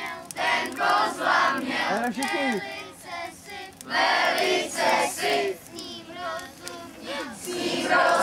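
A group of children singing together in short phrases.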